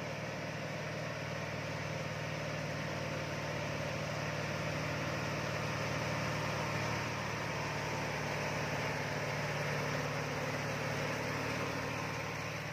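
Heavy diesel truck engines running steadily at low speed, growing a little louder through the middle as the trucks draw nearer and easing off near the end.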